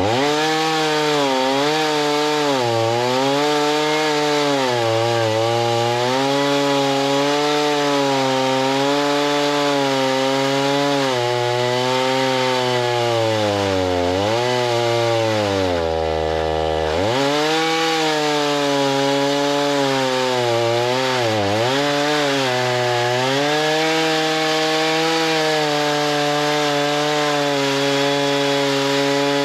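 Chainsaw running at full throttle while cutting wood, its engine pitch sagging and recovering again and again under the load. About halfway through it bogs down deeply for a second before picking back up, and it runs at a steady pitch near the end.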